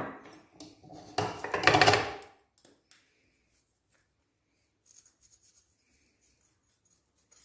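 Ground spices tipped from a saucer into a plastic blender chopper bowl of garlic cloves: the saucer scrapes and clatters against the bowl's rim for about two seconds, then only a few faint ticks as more spice is shaken in.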